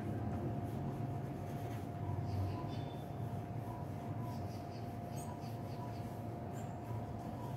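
A pencil shading on drawing paper, a series of faint scratching strokes, over a steady low hum with a constant thin tone.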